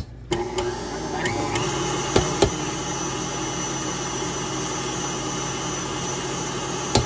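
KitchenAid stand mixer switched on, its motor speeding up over the first second and then running steadily as it mixes a thick cream-cheese filling. A few sharp knocks come at the very start and about two seconds in.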